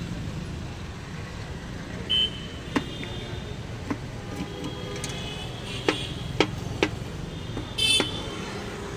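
Steady street traffic noise, with a short vehicle horn toot about two seconds in and a louder one near the end. Several sharp clicks of a knife striking a foil plate on a steel counter as a block of kulfi is chopped.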